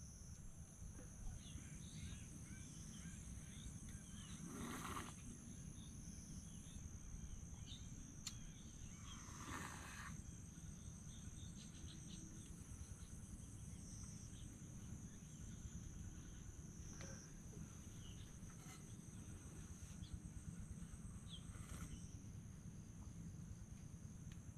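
Faint, steady high-pitched trilling of forest insects at several pitches at once, over a low background rumble, with a couple of brief rustles about five and ten seconds in.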